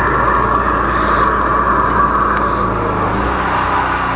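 13-horsepower high-pressure sewer jetter running steadily while jetting a drain line; about three seconds in, its engine note shifts.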